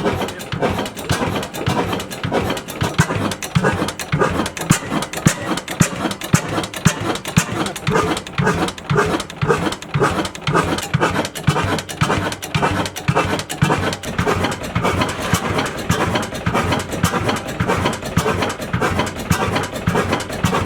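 Old diesel engine, once a mission station's power source, running steadily at idle with an even, rapid beat of firing strokes.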